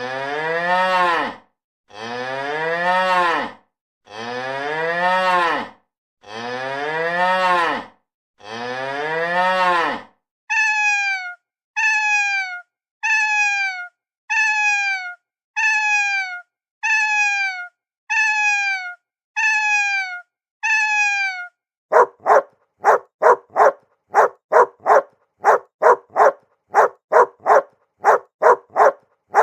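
A cow mooing five times, each moo long and deep. Then a cat meowing eleven times in short, high, falling meows, then a dog barking in quick short barks about two a second. Each animal's call is the same recording repeated.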